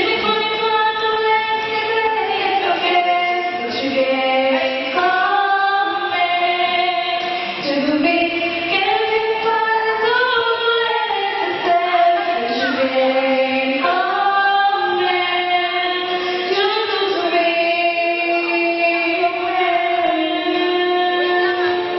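Three women singing together into handheld microphones, with long held notes that glide from one pitch to the next.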